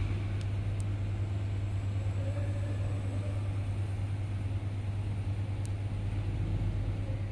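A steady low hum under a faint even hiss, with a few faint short clicks near the start and one more past the middle.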